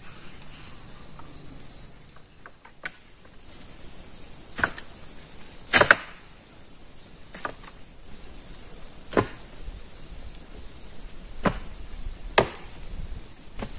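Wood being chopped with a blade: about seven sharp strikes, one every one to two seconds, the loudest about six seconds in.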